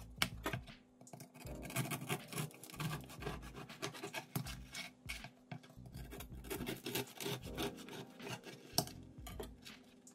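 Serrated bread knife sawing through a crusty sourdough baguette on a wooden cutting board: a fast, continuous run of scratchy strokes as the blade cuts the crisp crust.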